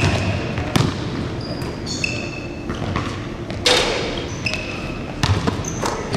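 Basketballs bouncing on a hardwood gym floor, several separate bounces, with short high squeaks of sneakers on the court. A louder hissing burst comes a little past the middle.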